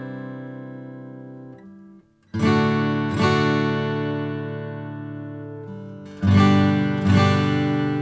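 Taylor 114 acoustic guitar, with a solid Sitka spruce top and laminate sapelli back and sides, playing slow chords left to ring. A chord dies away almost to silence. A new chord is struck twice just after two seconds in, and another is struck twice near the end, each left ringing.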